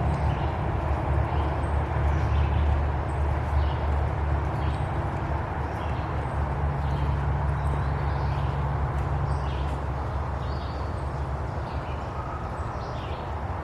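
A steady low rumble of wind on the microphone, with footsteps on a dirt trail and scattered short bird chirps.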